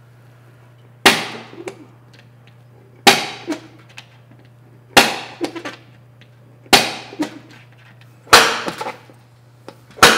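Papa-Dent dent tool striking its steel chisel bit into a metal rocker molding to knock out a heavy dent: a sharp metallic strike about every two seconds, six in all, each followed by a brief rattle.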